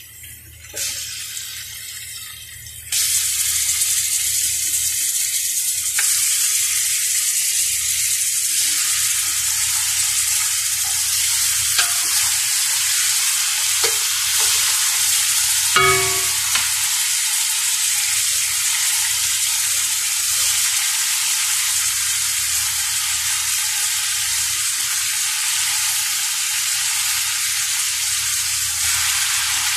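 Chicken pieces sizzling in hot oil in a steel pot. The sizzling jumps suddenly louder about three seconds in as the chicken goes in, then runs steadily, with a few light knocks of a wooden spoon stirring against the pot near the middle.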